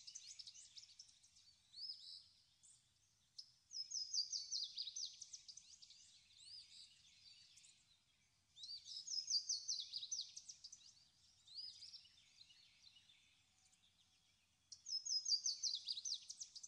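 A songbird singing: each phrase is a quick run of high falling notes followed by a few slower notes, repeated three times about five seconds apart, with the end of an earlier phrase at the very start.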